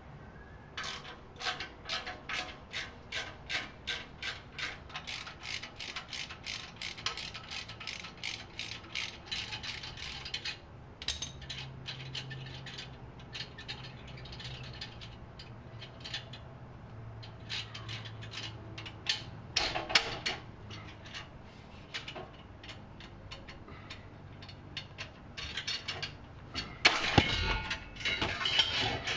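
Hand ratchet wrench clicking in quick strokes, about three a second, as the clamp nut holding the exhaust muffler is loosened. The clicks turn sparser later, and a louder metal clatter comes near the end as the muffler is worked loose.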